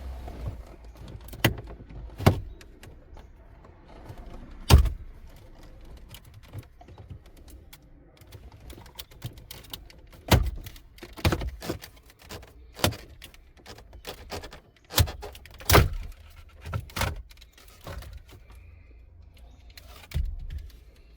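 Plastic dash trim panel of a 2018 Dodge Charger being pried off, its retaining clips popping loose: a string of sharp clicks and knocks, the loudest about five seconds in.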